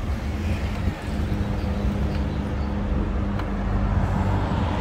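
Road traffic: cars driving along the road beside a cycle path, heard from a moving bicycle, with a steady low rumble that grows a little louder near the end.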